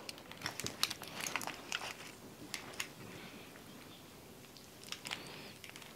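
Quiet scattered clicks and soft crinkling of steamed tacos being picked up and eaten, with bites and plate handling. The small sounds come thickest in the first couple of seconds, with a few more near the end.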